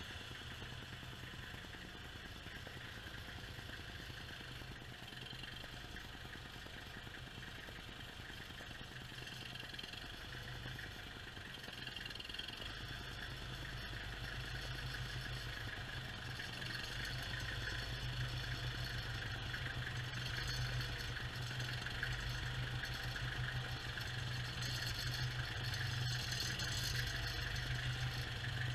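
Kubota tractor's diesel engine running steadily as the front loader is operated, getting gradually louder.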